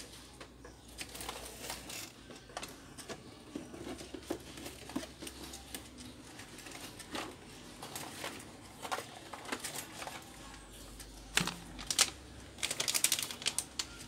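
Irregular light clicks and taps of small hard objects being handled, with a burst of louder rapid clicks near the end.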